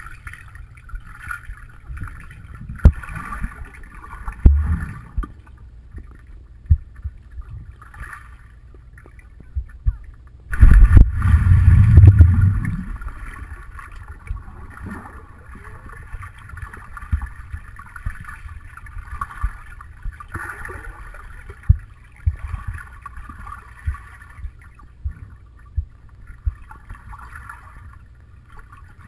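Muffled underwater sound of a swimming pool heard through an action camera's waterproof housing: a low rumble of moving water with scattered knocks and thumps, and a loud churning burst lasting about two seconds near the middle.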